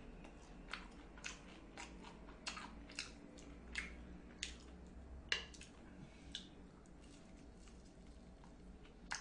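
Chewing and biting on crisp breaded fried pork cutlet: faint, irregular crunches, roughly one every half second to a second, over a low steady hum.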